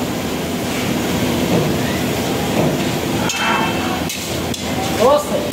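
Busy restaurant kitchen din: a steady rush of noise from the lit gas burners and exhaust fans, with a few sharp metal clanks of cookware in the second half.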